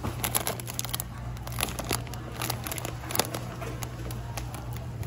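Clear plastic bag of dried longan crinkling and crackling as it is handled, a run of many short, sharp crackles.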